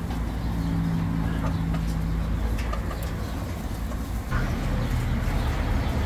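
Caged birds calling, with low cooing for about two seconds near the start, over a steady low rumble.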